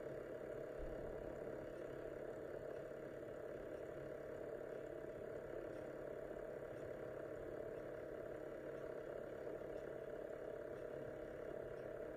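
Steady, unchanging background hum of room noise picked up by the microphone, with no programme sound from the TV while the warning screen is silent.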